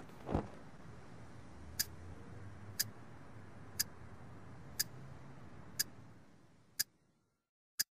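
A clock ticking about once a second, each tick short and sharp, starting a couple of seconds in. A thump comes just after the start as a blanket drops onto the bed, and a low room hum fades away near the end.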